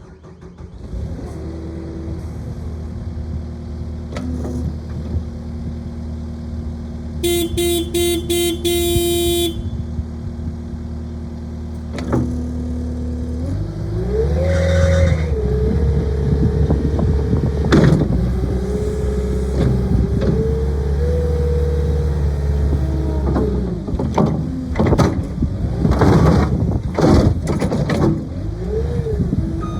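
Cat 259D skid steer's four-cylinder diesel engine idling, with a short run of about five electronic beeps about seven seconds in. Midway the engine revs up and runs at high speed for about ten seconds, then drops back and runs unevenly as the machine works.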